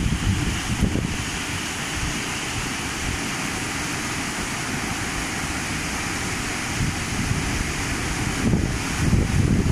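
Steady rushing of a muddy flash-flood torrent pouring through a yard, with wind buffeting the microphone at the start and again near the end.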